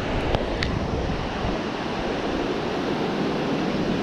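Ocean surf breaking and washing up the beach, a steady rush with wind on the microphone, and a few faint clicks about half a second in.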